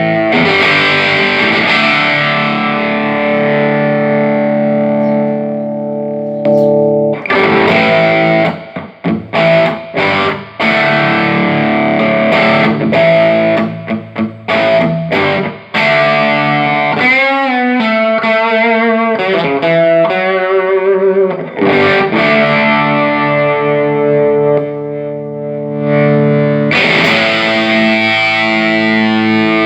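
Electric guitar played through a Peavey Classic 30 tube combo amp with overdrive: ringing distorted chords, then a run of short choppy chord stabs, and a brief lead line with wavering vibrato around the middle before the chords return. The amp is working again after its bad filter capacitors were replaced.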